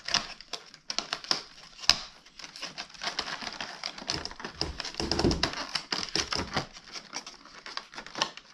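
Cardboard and plastic packaging crinkling and clicking in irregular bursts as a compartment of an advent calendar box is opened and its contents are pried out. A dull low thump comes about five seconds in.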